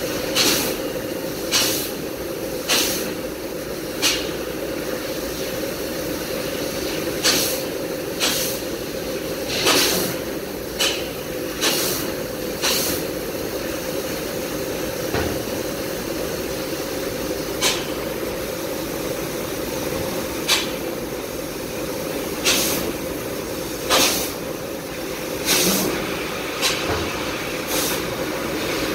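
Mitsubishi CNC laser cutter cutting 1.6 mm sheet-metal plate: a steady machine drone with short sharp hisses coming irregularly every one to three seconds as the cutting head works the sheet.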